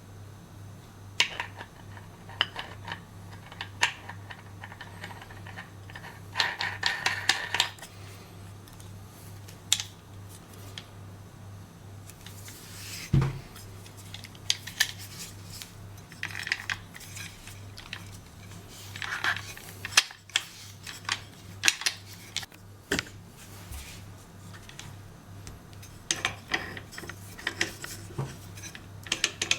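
Hands handling the angle grinder and its parts: scattered clicks, knocks and short bursts of clatter and rustling, with one louder knock about midway, over a steady low hum.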